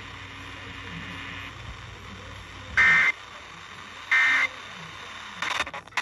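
Emergency Alert System digital data bursts, the short end-of-message squawks, played through a small portable radio's speaker: two loud, shrill bursts about 1.3 s apart and a weaker third. Clicks and crackle follow near the end as the radio is switched.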